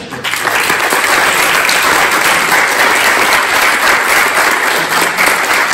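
Audience applauding: clapping that builds quickly and holds steady and loud.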